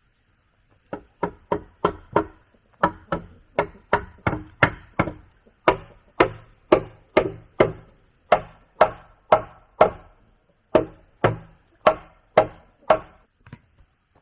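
A hand tool striking wood in a steady run of about two dozen sharp blows, roughly two a second, each with a short ringing tone, in short runs with brief pauses between them; the last blow is lighter.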